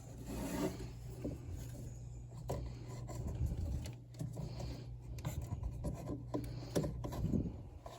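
Rubbing, scraping and small clicks of hands working at a furnace's condensate drain hoses and fittings, over a steady low hum.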